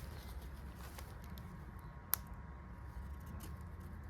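Handmade 1095 carbon-steel bushcraft knife shaving a green-wood stick into a feather stick: faint light scrapes and ticks, with one sharp click about halfway through.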